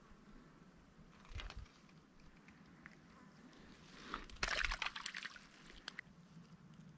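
Water splashing and sloshing: a short splash about a second and a half in, then a louder one lasting about a second in the middle.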